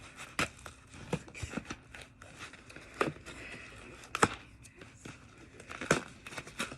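Packaging being handled by hand: light crinkling and rustling with scattered sharp clicks and taps, a few of them louder, about five in all.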